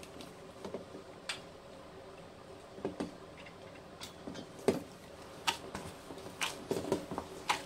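A gloved hand kneading a soft, sticky dough in a stainless steel bowl: irregular soft squishes and light knocks as the dough and hand press against the metal.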